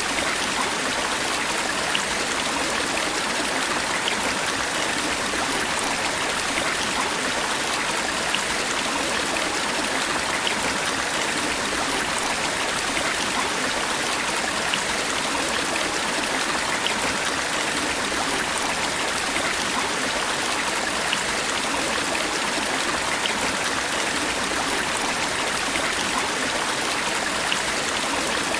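Stream water running over stones, recorded close: a steady, even rush with small splashes and trickles scattered through it.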